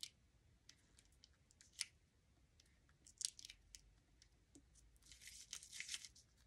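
Faint handling sounds of small craft work: a few light clicks and a brief papery rustle about five seconds in, as adhesive-backed gems are picked off their backing sheet with a pointed tool and pressed onto a cardstock card.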